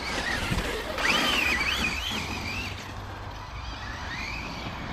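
Brushless electric RC cars driving hard, their motors giving a high whine that swoops up and down in pitch as the throttle is worked, loudest about a second in, over a low rumble.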